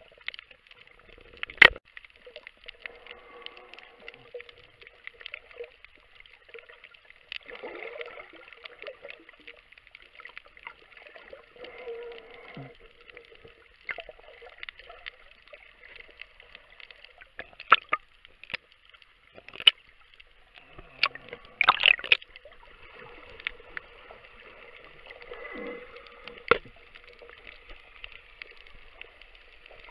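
Underwater gurgling and bubbling over a steady hiss, broken by scattered sharp clicks. The loudest click comes just under two seconds in, and several more bunch together a little past twenty seconds.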